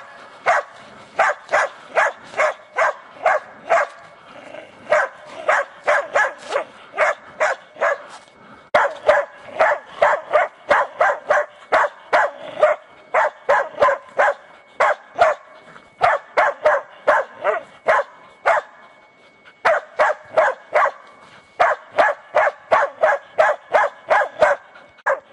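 Spitz-type hunting dogs barking hard at a wild boar held at bay. The barks are rapid and steady, about three to four a second, in long runs broken by a few short pauses.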